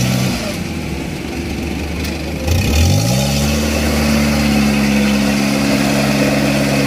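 Engine of a small rice-hauling farm tractor loaded with rice sacks, running at low revs, then revving up sharply about three seconds in and holding at high revs. It is straining to move through deep paddy mud.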